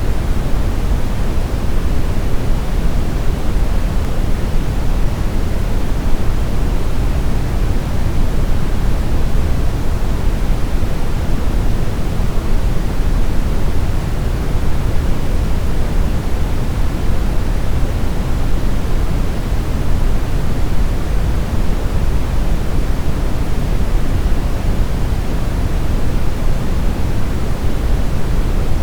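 Steady brown noise: an even, deep rumbling hiss, loudest in the low end and fading towards the treble, with no change or events.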